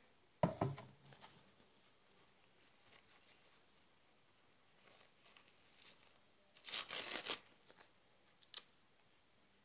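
Toilet paper being handled and torn by hand: faint rustling, then a short loud tear about seven seconds in. A sharp knock about half a second in.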